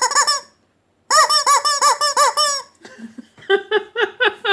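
Screaming rubber chicken toy squeezed repeatedly, its reed squeaker giving a rapid run of shrill, rising-and-falling squawks, about six a second. One run ends about half a second in and a second run follows after a short pause.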